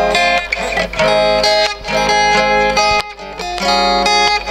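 Acoustic guitar playing a song's instrumental introduction, plucked chords changing about once a second, with a short pause about three seconds in.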